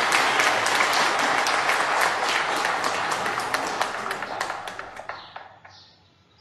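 Applause: many hands clapping, dying away over the last second or two. A few short, high chirps come in near the end.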